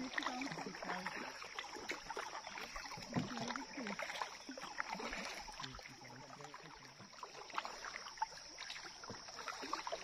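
Kayak paddling on calm water: paddle blades dipping, with light, irregular splashes and drips. A steady high-pitched whine runs underneath.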